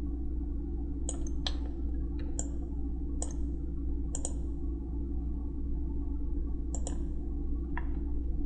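Computer mouse clicking as CAD commands are picked: scattered sharp clicks, some in quick pairs, over a steady low electrical hum.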